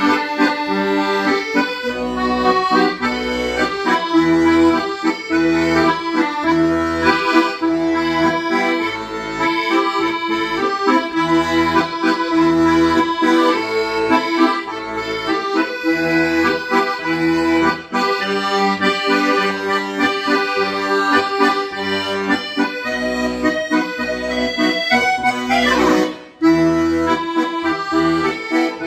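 Accordion playing a slow popular-song melody over a steady, evenly pulsing bass accompaniment, with a brief break and a quick run of notes near the end.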